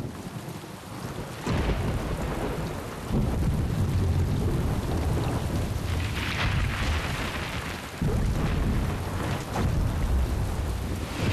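A rainstorm: steady rain with rumbling thunder that swells up suddenly about a second and a half in, again at about three seconds and again near eight seconds.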